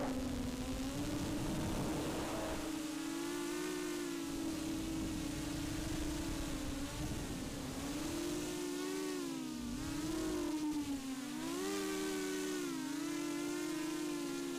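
Racing quadcopter's motors and propellers buzzing, recorded by the camera on board, the pitch swelling and dipping several times as the throttle changes.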